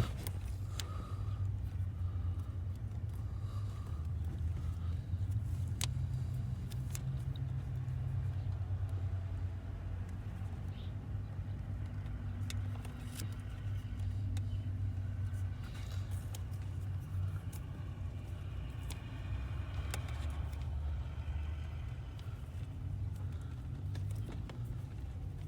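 Steady low rumble, like a vehicle engine running, under scattered light clicks and rustles of hands working wires and electrical tape.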